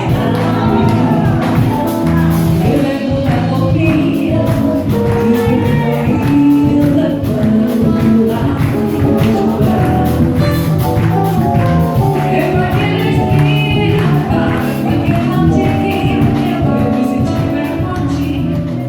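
Live band music with a steady, busy beat, held instrumental notes and singing.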